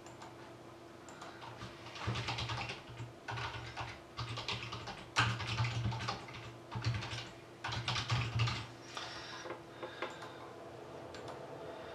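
Typing on a computer keyboard in several quick bursts of keystrokes, starting about two seconds in and dying away near the end.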